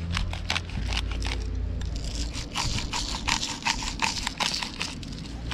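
Black pepper grinder being twisted, grinding peppercorns in a quick run of crunching, scraping strokes, about four a second, louder from about two seconds in.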